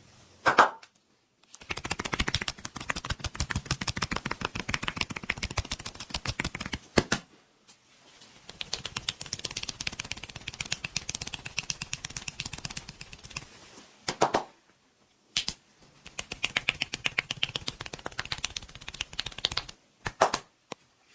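Hand percussion massage: a masseur's hands slapping and tapping rapidly on the body in three long runs of fast, even strikes. Single sharper smacks fall between the runs.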